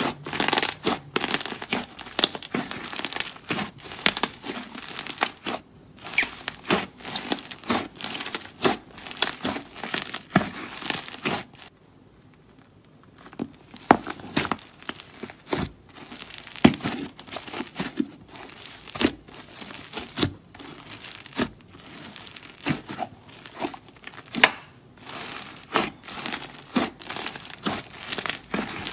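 Thick clay slime being squeezed, stretched and pressed by hand, giving a dense run of sharp crackling clicks. The crackling stops for about a second and a half roughly twelve seconds in.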